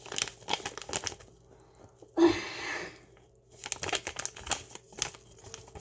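Kitchen handling noises: scattered light clicks and crinkling, with one brief louder rush about two seconds in.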